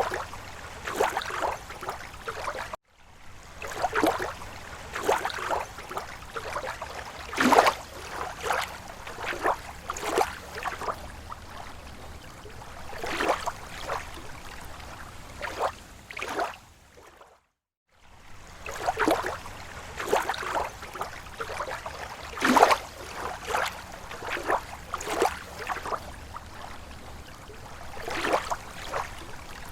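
Small waves lapping and splashing irregularly against a lake shore, with a steady wash underneath. The sound cuts out briefly twice, about three seconds in and again around seventeen seconds in.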